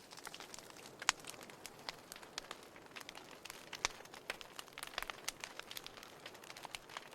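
Wood fire crackling in a fireplace: irregular sharp pops and snaps over a soft steady hiss, with the loudest snaps about a second in and just before four seconds in.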